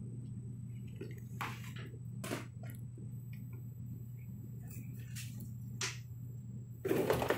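Macaque dabbling its hands in soapy water in a toy sink: a few short wet splashes and squishes, with a louder rustle of movement near the end.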